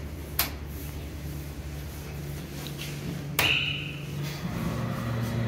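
Inside a Fujitec hydraulic elevator cab: a button click, then a sharp knock with a short ringing tone about three and a half seconds in. A steady low hum underneath grows louder near the end.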